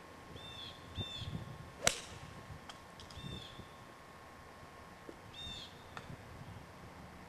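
A golf club strikes the ball with one sharp crack about two seconds in, the loudest sound. Birds chirp a few short times around it.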